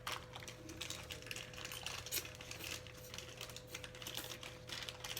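Small irregular clicks and light rustles of hands handling a new mailbox lock and its keys, over a steady low hum.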